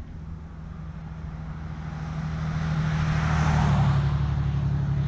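Engine of a passing motor vehicle: a steady low hum that grows louder over the first three seconds or so, with a rushing sound peaking about three and a half seconds in.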